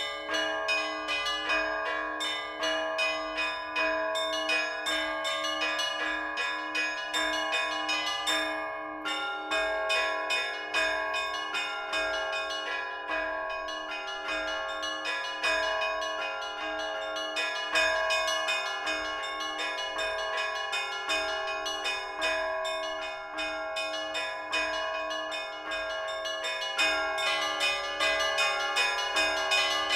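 Orthodox church bells rung by hand in a continuous peal: small bells struck in quick succession over a steady beat of a lower bell, with the pattern changing about nine seconds in.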